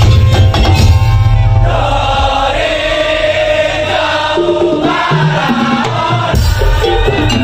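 Madurese daul (tong-tong) percussion music. The ensemble drums heavily at first, then gives way to a held melodic passage with voices singing together, and the drums and percussion come back in near the end.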